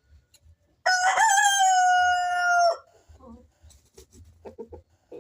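A rooster crows once: a single loud call of about two seconds that starts about a second in, wavers at first and then holds a long steady note before cutting off. A few faint short sounds follow.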